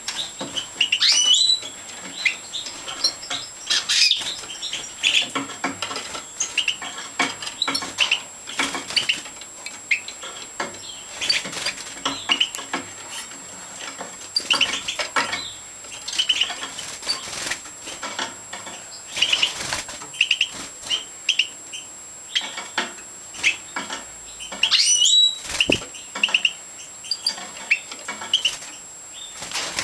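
European goldfinches of the large 'major' race chirping with many short call notes, mixed with wing flutters and small clicks as they flit and hop between perches. A quick rising call rings out about a second in and again near the end.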